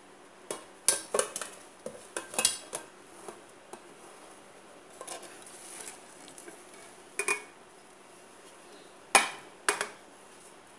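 Aluminium pudding mould and ceramic plate knocking and clinking against each other and the granite countertop as the mould is turned out onto the plate. A cluster of sharp knocks in the first few seconds, a few more later, and the loudest pair about nine seconds in.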